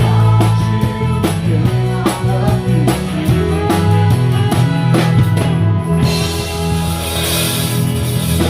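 Live rock band playing, with a drum kit keeping a steady beat under sustained electric bass notes and guitars. About two-thirds of the way in, the drumming gives way to a wash of crashing cymbals.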